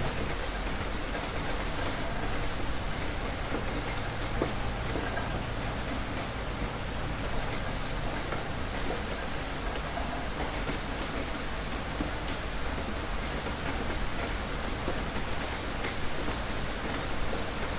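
Heavy rain falling steadily: a dense, even hiss of rain on surfaces, with scattered sharper drop splashes. A low rumble fades out over the first few seconds.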